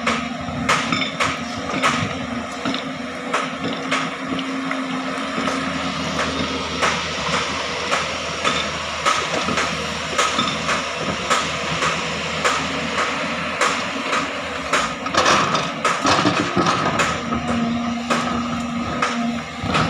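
JCB 205 tracked excavator at work digging soil: diesel engine running with a steady hydraulic hum, under frequent sharp knocks and clanks from the bucket and arm. The clanking is busiest about three quarters of the way through.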